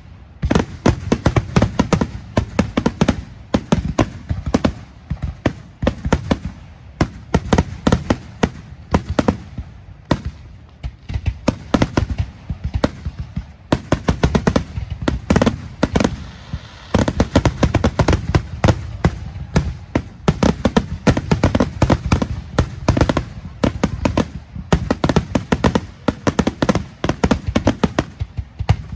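Fireworks display: a rapid barrage of aerial shells bursting, bang after bang in quick succession, easing briefly a few times.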